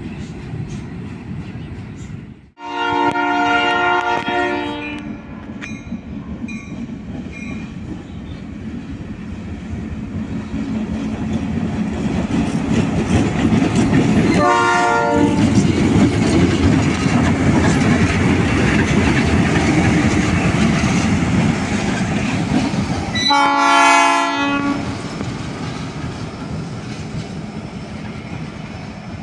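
Kansas City Southern diesel locomotives passing close by, their engine rumble swelling and then fading. The locomotive air horn sounds three times: a blast of about two seconds a couple of seconds in, a short one midway, and another about five seconds before the end. Freight cars are heard rolling briefly at the very start.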